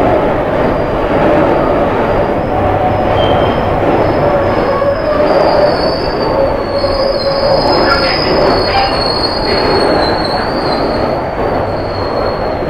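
Freight train of box wagons rolling past: a steady rumble of wheels on rail, with a high wheel squeal that wavers in pitch throughout.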